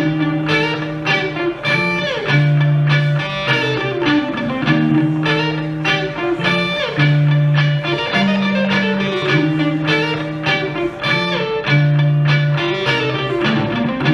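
Instrumental music on electric guitar: a repeating phrase of held low notes under higher picked notes, with no vocals.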